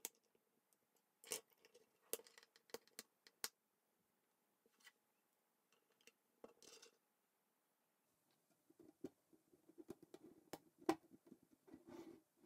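Plastic K'NEX rods and connectors snapping together with sharp clicks: a handful of single clicks in the first few seconds, then a denser run of small clicks and plastic rattling from about eight seconds in as the finished part is fitted onto the model.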